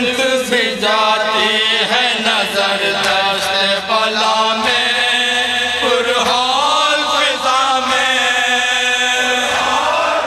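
Men's voices chanting a noha, a Shia mourning lament in Urdu, in chorus into a microphone, with long drawn-out sung notes that slide in pitch.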